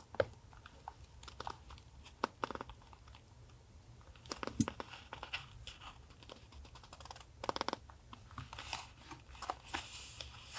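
Paper being handled for a journal collage: scattered light taps and short crinkles, with the longest rustle about seven and a half seconds in. A refrigerator's low steady hum runs underneath.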